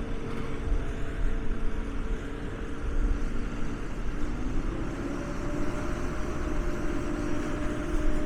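The engine of a 2006 R.M. Johnson E-Z Crusher log baler running steadily, with a few steady tones that step up in pitch about halfway through as the engine speeds up or takes load.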